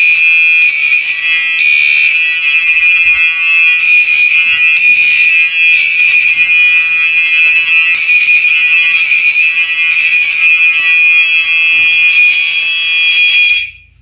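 Gentex fire alarm horn strobes (an SHG and a Commander 2) sounding a loud, continuous electronic horn tone, set off by a smoke detector going into alarm. The tone cuts off suddenly near the end as the system is silenced at the panel.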